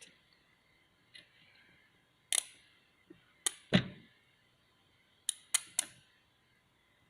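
Sharp snapping clicks, about six in three quick groups, as the output of a 12 V honeycomb switching power supply is briefly shorted with a metal tool to test it under load, sparking at the terminals; the supply carries the current and its short-circuit protection holds.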